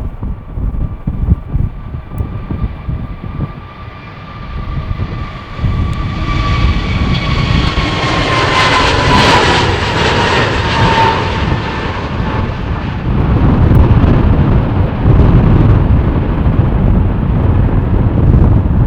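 Airbus A320neo jet airliner departing and passing close by. A loud jet whine bends downward in pitch as it goes past about ten seconds in, followed by a deep rumble as the engine noise recedes.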